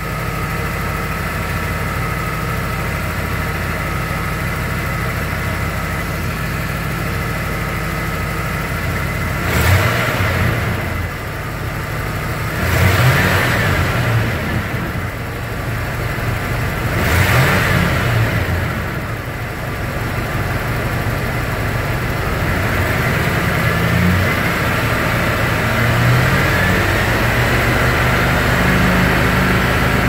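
Ford Bronco engine idling steadily, then revved briefly three times around the middle, each rev rising and falling back to idle, with a few smaller throttle blips near the end.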